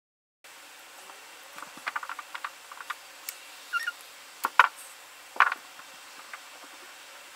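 Small clicks and taps of makeup tools and containers being handled, with a brief squeak, over quiet room tone; the sharpest clicks come about four and a half and five and a half seconds in.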